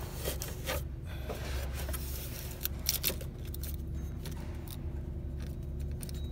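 Accessory-drive pulleys of a Honda Odyssey V6 turned by hand with the belt removed, a check for a noisy bearing: scattered light clicks and scraping of metal and hands on the pulleys over a steady low hum.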